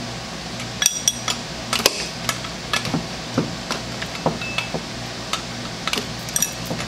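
A wrench clinking against the stubborn nut on the lower stud of a Borg-Warner Velvet Drive marine gearbox as it is worked loose: irregular sharp metallic clicks, a few ringing briefly.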